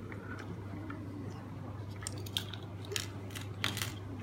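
Hard plastic parts of a Bandai Super Minipla Jet Garuda model kit being handled and fitted together: light clicks and rattles, with several sharper clicks in the second half, over a steady low hum.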